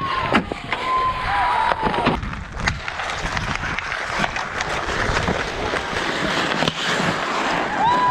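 Ice hockey play: skates scraping and carving the ice, with sticks clacking and sharp knocks of puck and sticks throughout. Players' voices call out, with a held call about a second in and another near the end.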